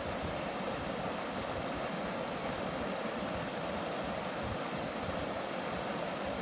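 Mountain valley stream running water in a steady, unbroken rush.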